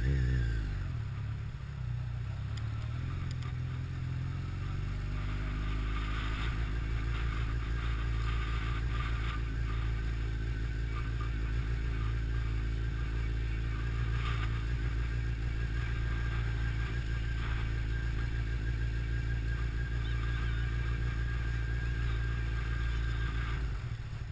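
Honda CBR1100XX Blackbird's inline-four engine at low road speed. It drops in pitch around the start, picks up over the next few seconds, then runs steadily.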